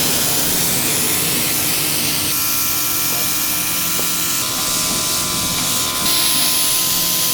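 Paint sprayer spraying edible metallic food paint onto a fondant cake: a loud, steady hiss of air and paint mist, with faint steady tones under it.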